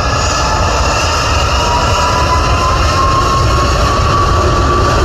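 Jet engines of an Airbus A330 (Rolls-Royce Trent 700s) running at high power on the runway, a deep rumble under a whine that rises slowly in pitch as they spool up for the takeoff roll.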